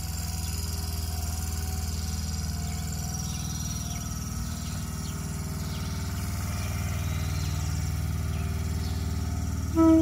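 Steady low electric hum from a Konan Railway 7000-series train standing at the platform, with a short, loud tone near the end.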